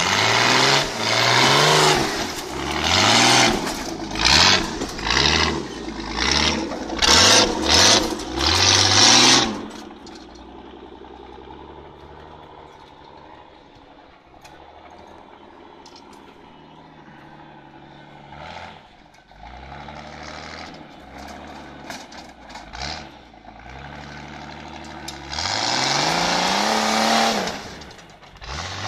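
Off-road 4x4 engines revving hard in repeated bursts, the pitch rising and falling, as they claw up a dirt and mud hill. The middle stretch is quieter, with the engine running lower, before one more long, loud rev near the end.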